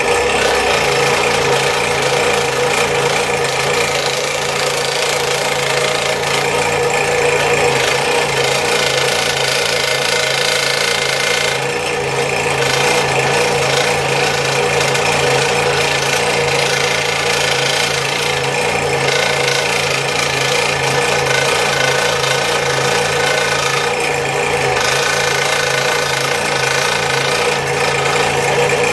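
Scroll saw running steadily, its reciprocating blade cutting a spoon blank out of 3/4-inch poplar. The cutting noise gets louder a few times as the blade works through the wood.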